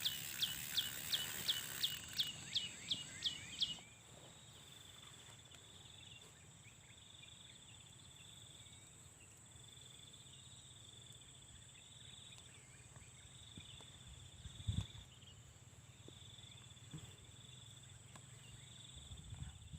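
Insects, crickets by their sound, trilling steadily. Over the first four seconds a louder run of about eleven quick falling chirps repeats about three times a second, and a single low thump comes near the middle.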